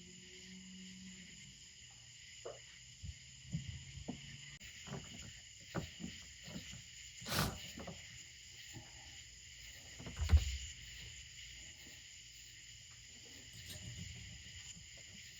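A steady insect chorus in the background, with scattered light clicks and knocks of parts and tools being handled while fitting a fuel tank sending unit. There is a sharper knock about seven seconds in and the loudest thump about ten seconds in.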